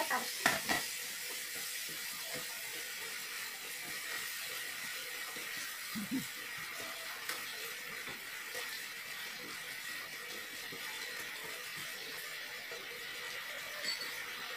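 Sweet-and-sour sauce with carrot and radish strips simmering in a frying pan on a gas burner, a steady hiss, with a few quick clinks of the bowl and chopsticks against the pan in the first second and a soft knock about six seconds in.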